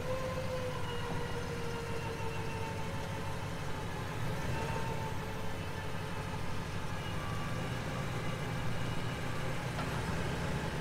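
Vehicle engine idling steadily, with a faint whine that sags slightly in pitch over the first few seconds.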